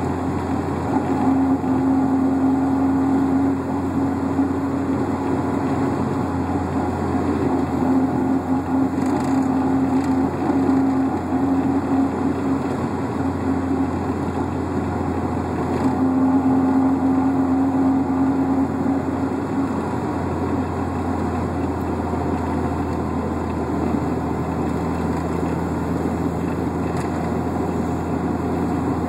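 Running noise of a 1996 Volkswagen Jetta MK3 2.0 on the move, with a low drone that comes and goes in stretches of a few seconds. The owner takes it for something rubbing near the centre of the car, cause unknown.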